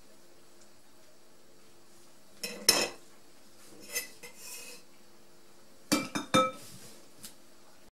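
Kitchen knife knocking and clinking against bowls while sliced boiled potatoes are moved off the board. There is a sharp clatter about two and a half seconds in, a lighter clink near four seconds, and a quick run of ringing clinks about six seconds in.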